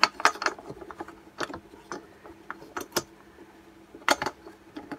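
Irregular clicks and light knocks of plastic and metal parts being handled and pushed into place at the carburettor end of a Stihl BG86 leaf blower, with a louder double click about four seconds in.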